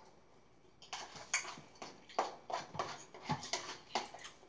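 Eating sounds from someone eating spinach out of a bowl: after a quiet first second, a string of short, irregular clicks and smacks, several a second.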